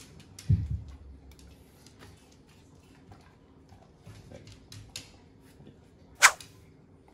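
Light ticking of a chow chow puppy's claws on a wooden floor as it moves and lifts a paw, with a dull thump about half a second in and one sharp crack about six seconds in.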